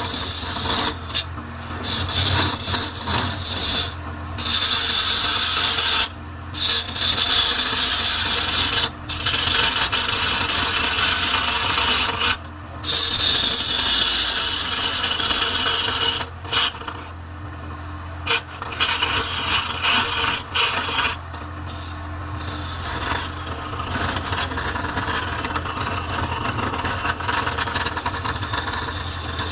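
A hand-held turning gouge cutting a spinning block of wood on a lathe: a steady scraping hiss of shavings peeling off, broken several times by short pauses where the tool comes off the wood. A steady low hum from the lathe runs underneath.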